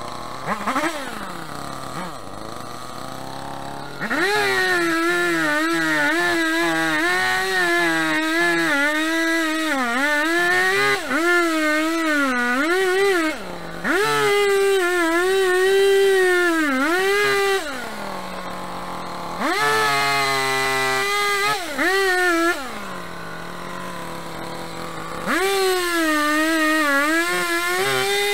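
Chainsaw engine switching between idle and full throttle: it revs for several seconds at a time, its pitch sagging and recovering as the chain bites into the roots of a tree stump, and drops back to idle twice in the middle.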